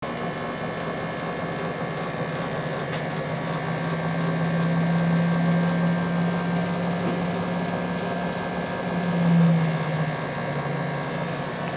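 UAR-Vega1000 magnetic generator running, its magnet-studded rotor disc spinning steadily: a continuous humming drone with one strong low tone, swelling briefly a little after nine seconds in.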